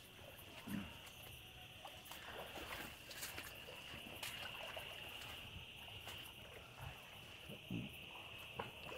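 Footsteps and rustling as people push through tall grass, with a few soft footfalls. Behind them, a steady high-pitched chirring of night insects.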